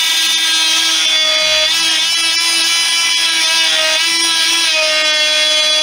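Electric oscillating multi-tool with a narrow blade running steadily as it cuts a hinge slot into the wooden tailplane edge, a constant whine whose pitch wavers slightly as the blade bites.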